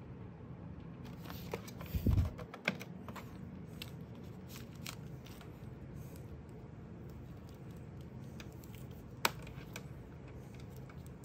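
Hands handling a plastic mini fan and its USB cable: scattered light clicks and taps over a steady low hum, with a dull thump about two seconds in and one sharp click near the end.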